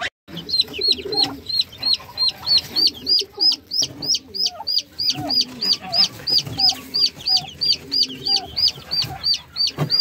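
Newly hatched chicks peeping steadily, about four high peeps a second, each dropping in pitch at its end. Soft, low clucks from the brooding turkey hen sound underneath.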